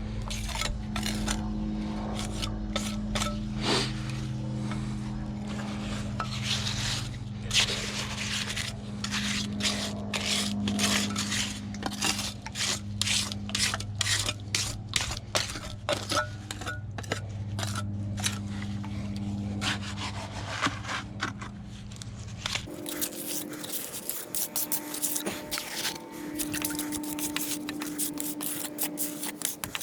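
A trowel scraping and working wet cement in many short, irregular strokes, over a steady low hum that cuts off about three-quarters of the way through.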